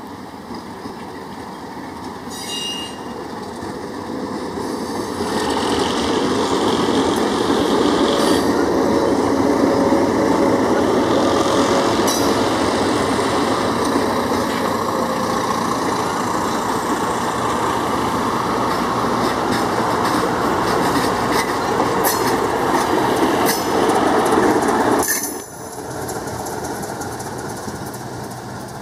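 Diesel-hauled passenger train passing close by: an RS18 locomotive leads, then the passenger cars roll past with a steady rumble of wheels on rail, followed by a trailing S1 switcher. The sound builds over the first few seconds and drops suddenly near the end.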